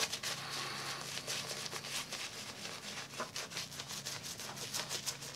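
Wet shaving brush swirled rapidly over the face: bristles rubbing and scrubbing through the soap lather in many quick strokes. The lather still needs more water.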